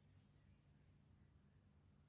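Near silence: faint room tone with a steady low hum and a thin, steady high-pitched whine.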